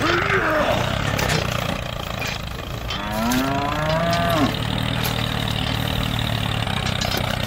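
A cow mooing, one long call about three seconds in, over a steady low engine running.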